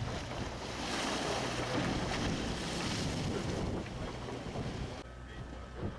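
Wind buffeting the microphone and waves splashing against a fishing boat's hull in a choppy sea, a steady rushing noise that drops quieter about five seconds in.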